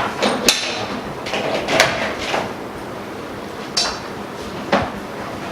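Handling noise from connecting the machines: a handful of sharp clicks and clinks, about five spread through, as cables and connectors are handled and plugged in.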